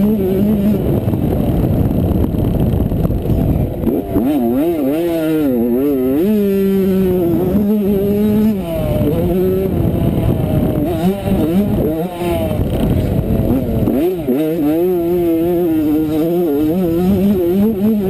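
Two-stroke 85cc motocross bike engine, heard from the rider's helmet camera, revving up and down again and again as the throttle opens and shuts through the gears, over wind rushing on the microphone.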